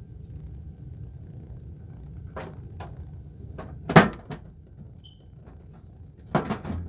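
Metal front panel of a Rinnai tankless water heater being handled and fitted back onto the unit. There are a few light clicks, one sharp knock about four seconds in, and a quick run of knocks and rattles near the end.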